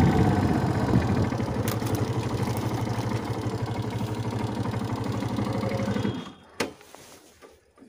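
Motorcycle engine running at low revs with an even pulsing beat, fading slowly as the bike slows, then cutting out suddenly about six seconds in, followed by a single sharp click. The bike's accelerator cable has snapped, so the engine is left at low throttle.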